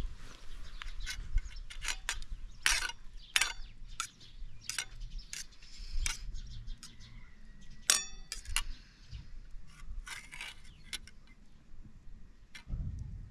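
A metal fork clinking and scraping against a stainless-steel bowl as a chicken drumstick is turned in beaten egg. The light clinks come irregularly, with one ringing strike about eight seconds in.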